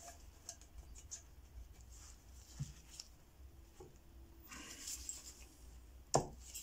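Faint handling sounds of a motorcycle's upside-down fork parts being worked by gloved hands: scattered light clicks and a stretch of rubbing, then a sharper knock near the end.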